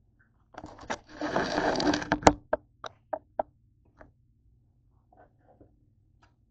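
Handling noise on a kitchen counter: about a second and a half of scraping and rustling that ends in a sharp knock, then five or six lighter knocks and taps, trailing off into a few faint taps.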